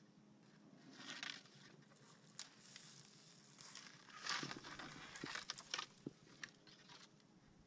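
Kayak paddle dipping into calm water: soft swishes and drips, one about a second in and more around the middle, with small scattered clicks and knocks.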